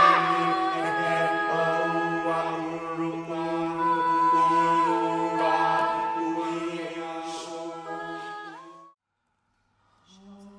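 A mixed-voice a cappella vocal ensemble singing long sustained chords over a steady low drone, with the upper parts shifting pitch slowly. The sound breaks off abruptly near the end, and after about a second of silence a new, quieter held chord begins.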